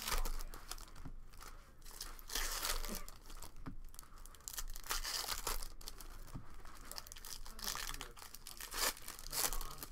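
Foil trading-card pack wrappers being torn open and crinkled by hand, in several separate bursts of tearing and rustling.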